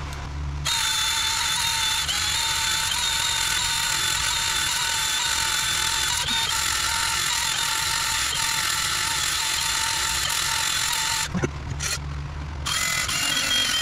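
Belt file (finger belt sander) running steadily with a high whine as it sands an edge. It stops about 11 seconds in and starts again a second or so later.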